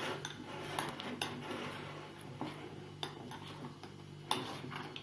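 Spoons stirring slime in bowls: irregular clinks and scrapes of the spoons against the bowls, with sharper clicks about one second and about four seconds in.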